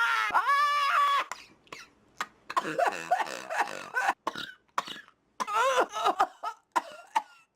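A woman gives a loud, high-pitched scream for about a second, then breaks into a long run of short coughs, some with her voice catching in them.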